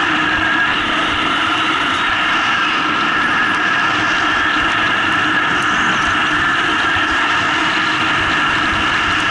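Steady rush of skiing downhill: wind over the microphone mixed with skis sliding on packed snow, a constant noise with a few steady tones running through it.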